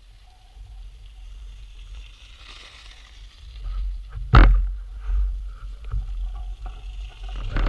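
Low wind rumble on the microphone outdoors on a snowy trail, with one sharp knock a little past the middle and a few fainter ticks after it.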